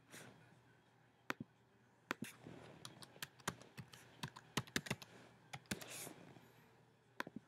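Computer keyboard keys tapped at an irregular pace as a password is typed in.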